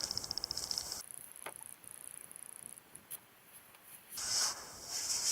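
Night insects trilling in a fast pulsing rhythm, giving way about a second in to a fainter, higher-pitched trill with a couple of faint clicks.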